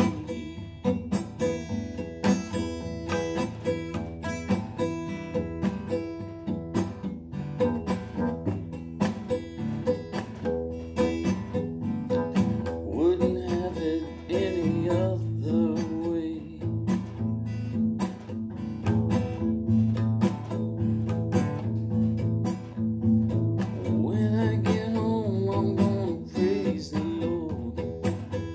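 Acoustic guitar played solo, strummed and picked through an instrumental passage between sung verses.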